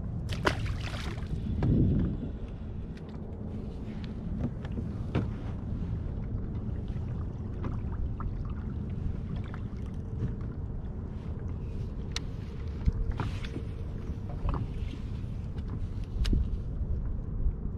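Steady low rumble of wind and water noise on a kayak at sea, with a small splash about half a second in as a released calico bass hits the water, and a few scattered clicks and knocks from fishing gear against the hull.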